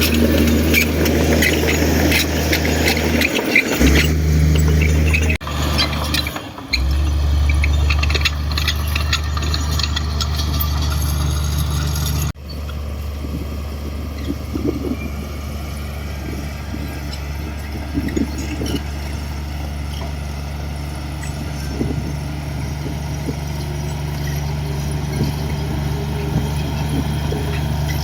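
Komatsu D58 bulldozer's diesel engine running with a steady low drone. In the first half it comes with rattling and squealing, and the sound breaks off abruptly a few times before settling to a steadier drone.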